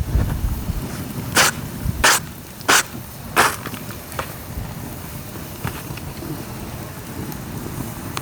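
Dry bamboo cracking sharply four times in quick succession, about two-thirds of a second apart, over a steady hiss of rain.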